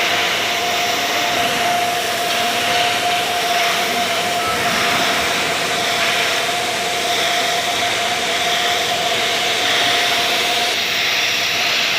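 TIG welding arc burning steadily under argon on 1.2 mm sanitary pipe: an even hiss with a steady high tone running through it.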